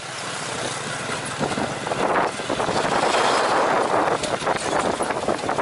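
Ride noise from the passenger seat of a motorbike-drawn tuk-tuk moving along a street: the motorbike's engine running under a steady rush of road and traffic noise, with a few light rattles. The sound fades in over the first second or two.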